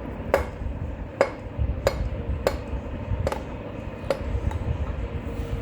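Hammer striking metal six times, about once every three-quarters of a second, each blow a sharp clink with a brief ring, knocking at a stuck part to free it. A low rumble runs underneath.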